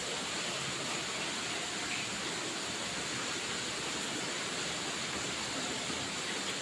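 Steady, even hiss of background noise at a constant level, with no distinct sounds standing out from it.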